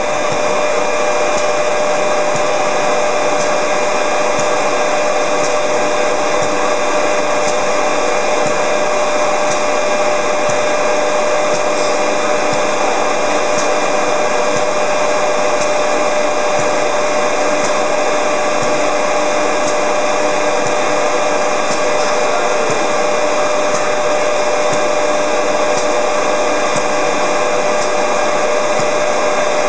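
FIMEC high-speed spindle on an industrial robot milling aluminium: a loud, steady machining noise with a constant whine and no break.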